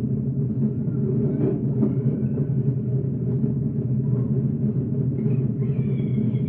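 Steady muffled underwater rumble, a low drone like being beneath the surface of the water, heard through a TV's speaker. Faint high held tones come in near the end.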